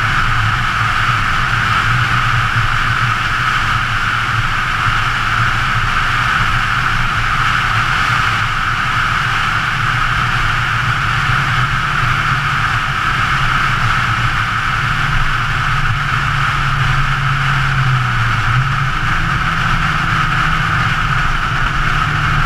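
Steady wind rush over a hood-mounted camera, with the 2013 Scion FR-S's flat-four engine humming low underneath at a steady cruise. In the last few seconds the engine note steps up in pitch.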